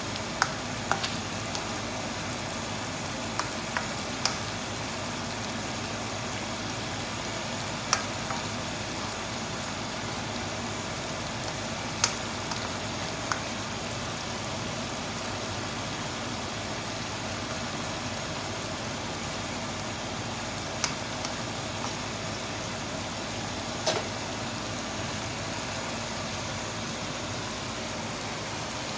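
Chicken, cabbage and potato stew simmering and sizzling in a wok: a steady hiss with a dozen or so scattered sharp clicks.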